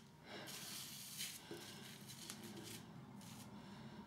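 Faint wet squelching of shaving lather being squeezed out of a RazoRock synthetic shaving brush by hand, a little louder about a second in.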